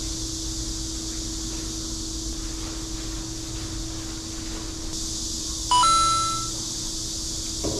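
A short, loud two-note electronic beep about two-thirds of the way through, fading over about a second, over a steady low hum and hiss.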